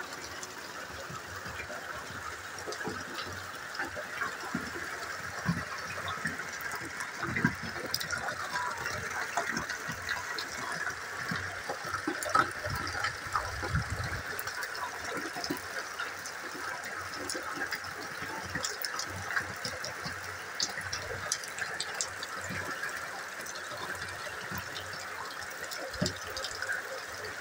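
Steady rain falling, with water pouring off the edge of a roof and scattered drops tapping throughout.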